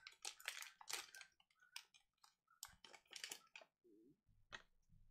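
Faint crinkling of a trading-card pack's plastic foil wrapper being torn open and handled, a run of short, irregular crackles.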